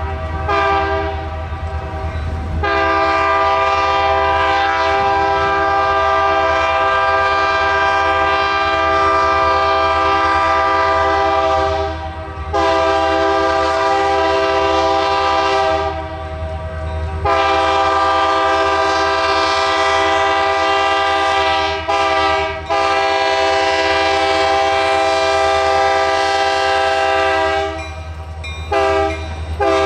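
Diesel locomotive air horn sounding a series of blasts over the low rumble of the engine. The first blast is long, about twelve seconds. Several more blasts of a few seconds each follow, with a brief toot in the middle of them and another near the end.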